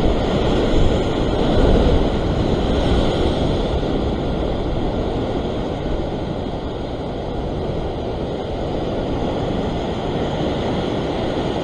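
Ocean swell surging and breaking against the rock ledge below, a continuous wash of surf that swells a little louder in the first couple of seconds, with wind rumbling on the microphone.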